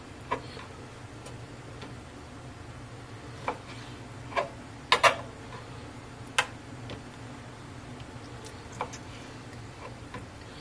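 Knife tapping on a plastic cutting board as raw chicken is cut into pieces: a handful of sharp, irregular knocks, the loudest a quick pair about halfway through.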